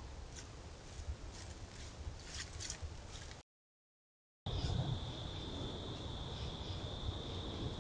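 Trail-camera outdoor audio: a steady hiss with a few soft rustles or crackles, cut by about a second of dead silence at a clip change, then a steady high-pitched whine over the hiss.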